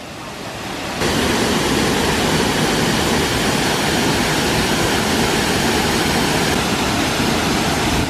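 Waterfall pouring into a plunge pool: a steady rushing hiss of falling water, which gets louder about a second in.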